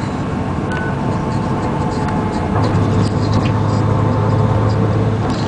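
Den Oudsten Alliance B96 city bus's diesel engine running with a steady low drone that grows louder a little past halfway, with small clicks and rattles over it.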